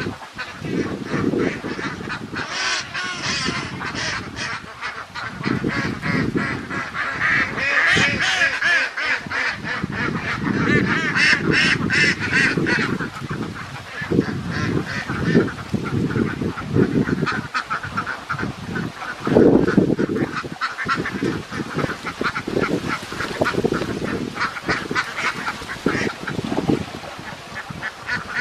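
A large flock of domestic ducks quacking, many short calls overlapping in a constant chatter, with a louder burst about two-thirds of the way in.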